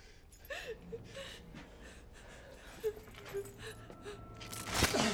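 Quiet gasping breaths and short whimpering sounds, then a sudden loud burst about four and a half seconds in.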